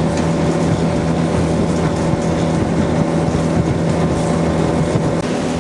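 A boat's motor running at a steady pitch, with an even rush of water and wind under it.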